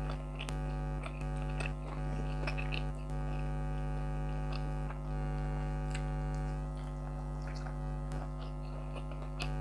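Air conditioner running with a steady hum made of several constant tones, with scattered small clicks of chewing and of fingers working through rice.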